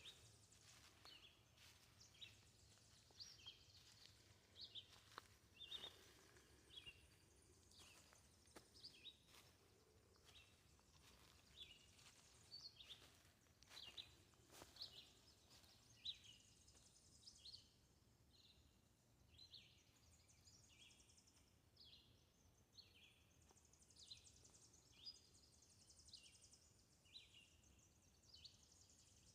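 Faint bird calls in woodland: short high chirps repeating about once or twice a second over a quiet background hiss.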